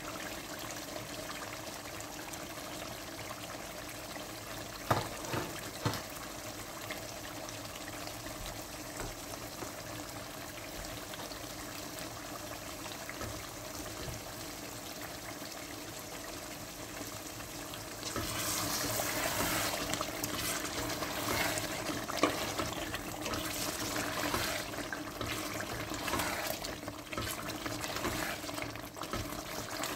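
Chicken masala with cream frying in a pot, sizzling and bubbling steadily. About eighteen seconds in it grows louder and rougher as a spatula stirs through it.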